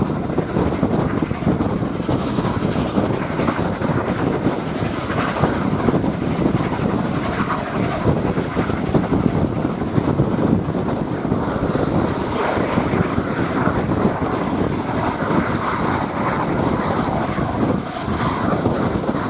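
Steady rush of wind buffeting the microphone at an open carriage window, mixed with the train's running noise and the working of the AD60-class Beyer-Garratt steam locomotive 6029 at the head of the train.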